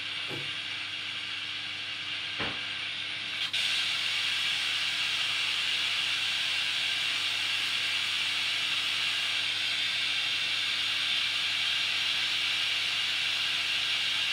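SB7 spirit box sweeping through radio stations: a steady static hiss. Two short clicks come first, then the hiss steps up louder about three and a half seconds in.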